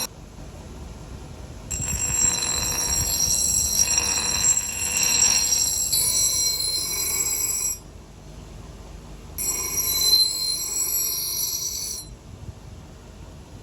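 A power grinder working the steel of an axe head, giving a shrill metallic whine. It runs in two passes of several seconds each, the first about two seconds in and the second after a short pause, each cutting off abruptly.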